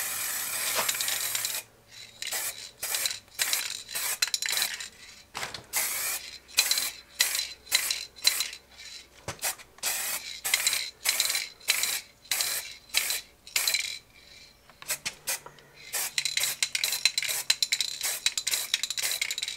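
Aerosol can of white spray paint hissing: one longer spray at the start, then many short spray bursts in quick succession, a pause about two-thirds through, then more short bursts.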